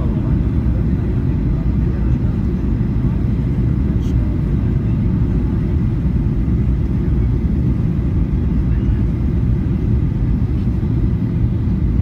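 Steady rumble of a jet airliner's engines and airflow as heard inside the passenger cabin, deep and even with no change in level.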